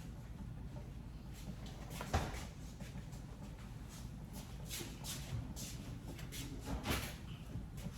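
Kitchen handling sounds: a few separate knocks and clicks of cookware and utensils, the loudest about two seconds in and again near seven seconds, over a low steady hum.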